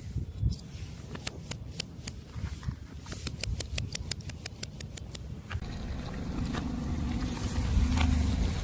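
A car tyre rolling over crunchy objects, crushing them in a rapid series of sharp cracks. About halfway through, the cracks give way to the car's tyres and engine, growing louder towards the end.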